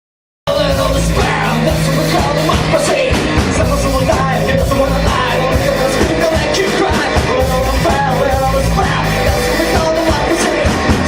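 Loud rock music by a band, with drums and singing, starting abruptly about half a second in.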